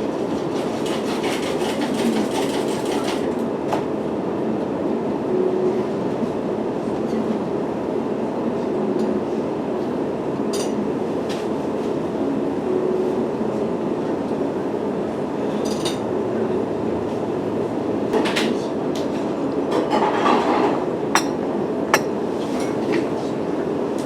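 A train running: a steady rumble with scattered short clicks and knocks.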